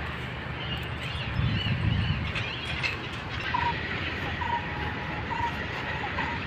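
Open-air park ambience: a steady low rumble that swells about a second and a half in, with birds chirping and giving short repeated calls over it.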